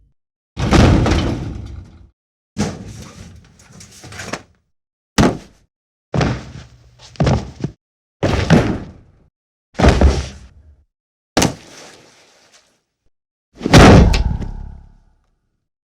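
A series of cinematic punch sound effects: about ten separate heavy hits, each a sharp impact that dies away over about a second, with short silences between them. The last hit, near the end, is the loudest.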